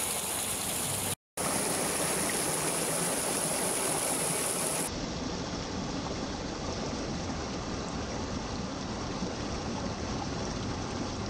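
Flash-flood runoff water rushing and splashing over stones and gravel in a shallow stream bed, a steady rush. It cuts out for a moment about a second in, and about five seconds in it turns to a deeper, lower rush.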